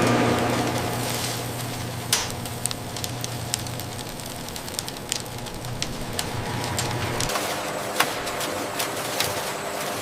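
Factory machinery running: a steady low hum that cuts out about seven seconds in, with irregular clicks and clatters throughout.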